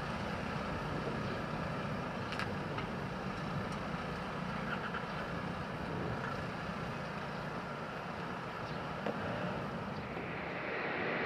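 Airbus A340's four jet engines at takeoff power, heard from a distance as a steady rumble while the airliner rolls, rotates and climbs away. Near the end the sound turns brighter and a little louder.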